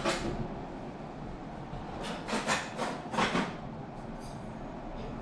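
Handling noise from the hand-held camera: soft rubbing and a few brief scuffs over a steady low hiss, the scuffs bunched in the middle.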